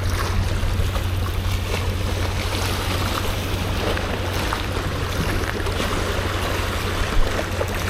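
Steady low rumble of wind buffeting the microphone, with waves washing against the shore underneath.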